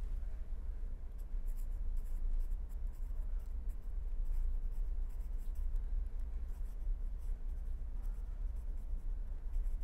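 A pen scratching across paper as words are hand-written, in short uneven strokes starting about a second in, over a steady low hum.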